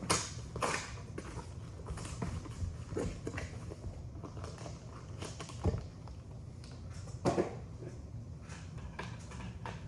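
A shipping package being opened and its contents handled: scattered knocks, clicks and rustles, the sharpest near the start and about three, six and seven seconds in, over a low steady hum.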